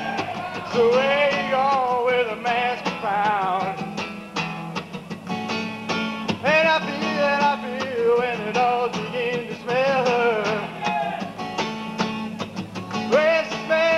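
Music for a dance routine: a song with a singing voice over a steady beat.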